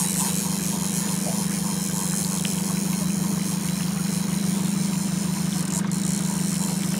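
Boat motor idling steadily: an even, unbroken low hum.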